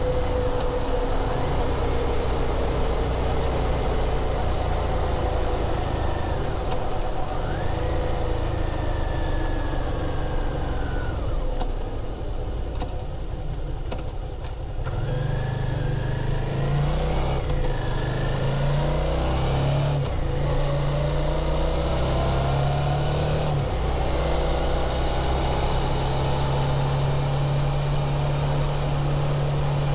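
2017 Suzuki V-Strom DL650's 645 cc V-twin running through its stock muffler while riding. The engine note rises and falls as the throttle and gears change, eases off for a few seconds about twelve seconds in, then pulls strongly again from about fifteen seconds.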